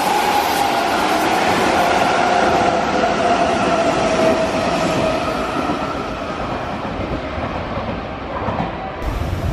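Hanshin 5000-series 'Jet Car' electric train running past along the platform: running noise with a steady whine that falls slightly in pitch and fades as the train moves off.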